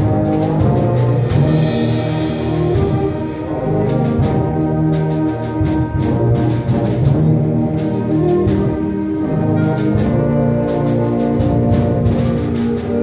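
Middle school concert band playing, with brass and woodwinds holding full chords that change step by step and percussion strikes running through.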